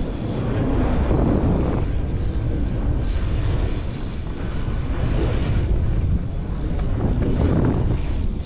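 Wind rushing over the camera microphone and BMX tyres rolling on concrete as the bike carves around a concrete bowl, the rush swelling and easing every couple of seconds with the rider's speed.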